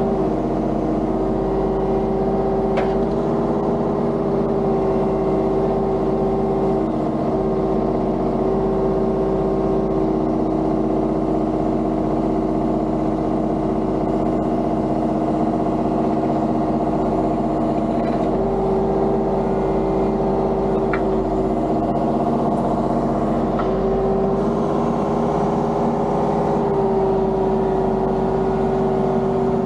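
Diesel engine of a construction machine running steadily, its pitch stepping up and down slightly a few times as the load changes, with a few faint clicks.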